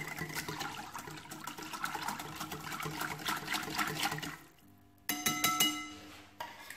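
Wire whisk beating a runny lemon-cream mixture of eggs, sugar, melted butter and lemon juice in a glass bowl: fast liquid sloshing with the tines clicking against the glass, stopping about four seconds in. A moment later comes one short, loud ringing clink.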